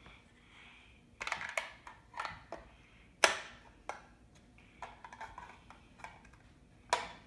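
Irregular knocks and clatters of small hard toys, a harmonica among them, being picked up and banged down by a toddler. The sharpest knock comes about three seconds in.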